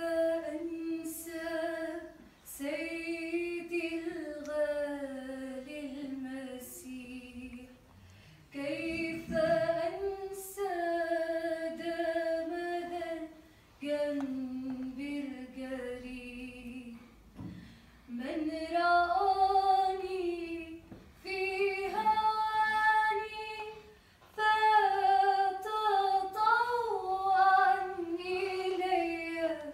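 A woman singing solo and unaccompanied, in long, slowly bending phrases with short breaks for breath between them.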